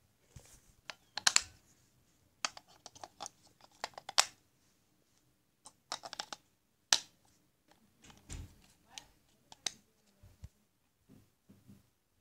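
Batteries clicking and rattling as they are handled and pressed into a toy's plastic battery compartment against its metal contacts. The sound comes as several clusters of sharp clicks and knocks, with short quiet gaps between.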